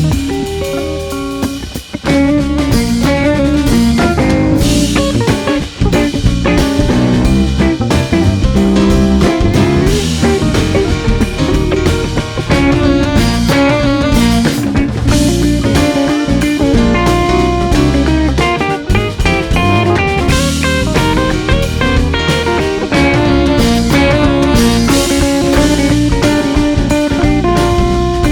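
Live blues-rock band playing an instrumental passage: guitars and bass over a drum kit, with no singing.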